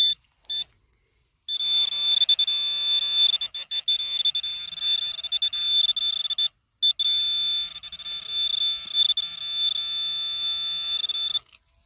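Metal-detecting pinpointer sounding a steady, high-pitched electronic tone while held against metal in the soil, meaning the target is right at its tip. Two short beeps come first, then the tone holds for about five seconds, breaks off briefly, and holds again for about four and a half.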